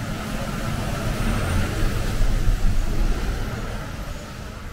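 A box truck drives past on the wet street. Its low engine rumble and tyre noise build to their loudest a little past halfway, then fade.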